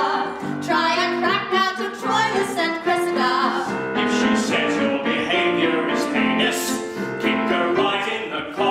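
Singers performing a song from a stage musical with piano accompaniment; women's voices at first, with men's voices carrying the song from about halfway through.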